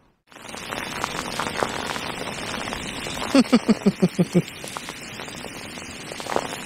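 Heavy rain falling on a lake's surface, an even hiss with scattered drop ticks, starting a moment in after a brief silence. A little past the middle comes a quick run of about eight short pitched notes.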